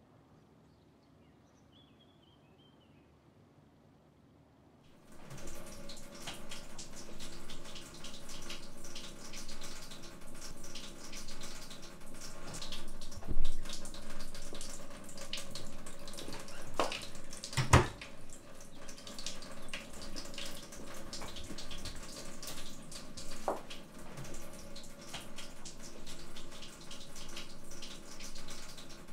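Near silence for about five seconds, then water starts running steadily from a tap, with scattered small clicks and two sharp knocks partway through.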